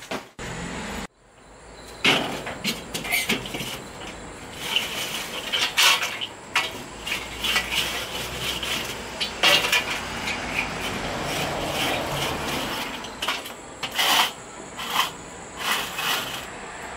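Repeated metal clanks, knocks and scrapes as the lid, grate and a stainless-steel Slow-N-Sear charcoal basket, holding spent charcoal, are lifted and moved around in a Weber kettle grill.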